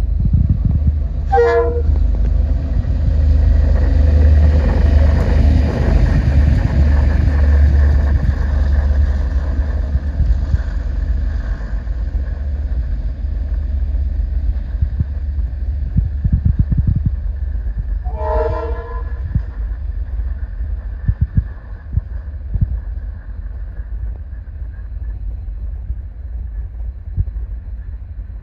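Diesel-electric locomotive-hauled train running through a station with a heavy low rumble and wheel clatter, loudest in the first third and easing off. A locomotive horn gives two short blasts, one near the start and one about 16 seconds later.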